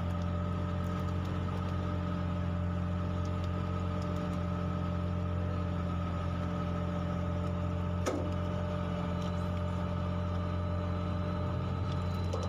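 Fishing boat's engine running steadily, a constant low hum, with one small click about eight seconds in.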